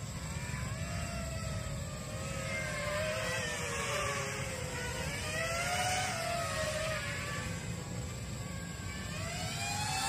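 Eachine Wizard X220 racing quadcopter flying overhead: the whine of its 2205 2300KV brushless motors and propellers, rising and falling in pitch as the throttle changes.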